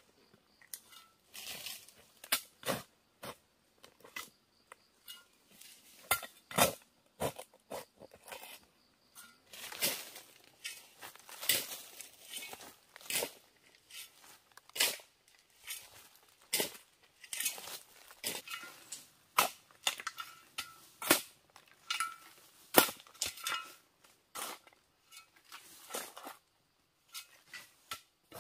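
Hoe chopping into dry red clay soil, striking and breaking up clods in sharp crunching blows at an irregular pace of roughly one a second.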